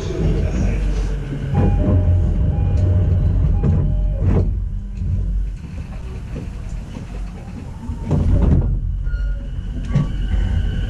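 E233-series electric commuter train heard from inside a motor car: a steady low running rumble with a few louder surges and clunks. Near the end a whine from the traction motors starts rising in pitch as the train accelerates.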